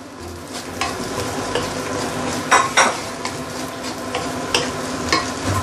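Nasi goreng (Indonesian fried rice) sizzling in a stainless steel pan as a spatula stirs and turns it, with a few scattered scrapes and clacks against the pan: the final stirring of the finished dish.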